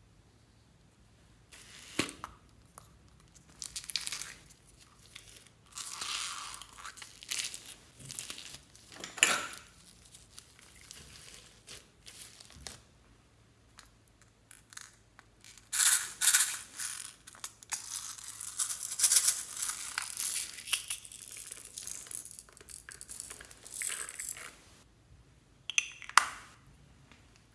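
Plastic containers of foam beads being handled and opened, with pink foam beads rattling and rustling as they are tipped out onto slime. It comes in irregular bursts of crackly noise, with a sharp plastic click near the end.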